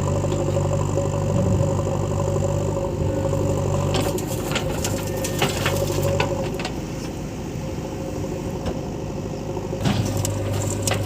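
Diesel earthmoving-machine engine running steadily, with a run of clattering knocks about four to seven seconds in and again near the end.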